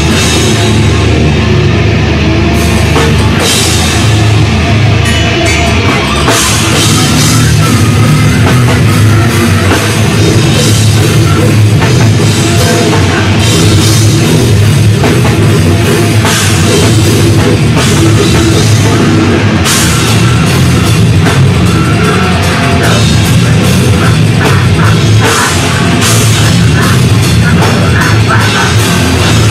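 Heavy metal band playing live and loud: distorted electric guitar over a drum kit with cymbals, without a break.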